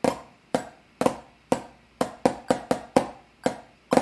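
Drumsticks playing a snare-drum exercise of single strokes and flams, a passage of sharp strokes each with a brief ring, roughly three to four a second with quicker runs in the middle.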